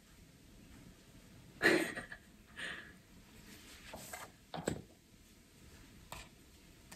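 A spoon scraping and knocking in a glass bowl of whipped cream, in a handful of short, separate sounds. The loudest comes a little under two seconds in.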